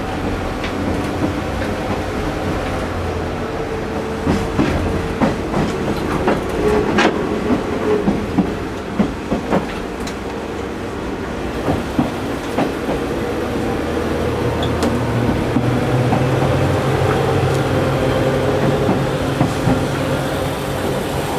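Interior sound of a moving KiHa 20 diesel railcar: its DMH17 diesel engine runs with a steady low hum while the wheels click and knock over rail joints, mostly between about four and twelve seconds in. The engine note grows stronger in the second half.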